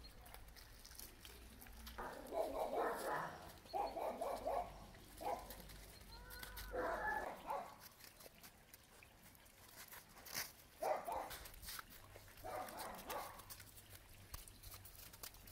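Dogs vocalising in several short bouts of about a second each, spaced a few seconds apart.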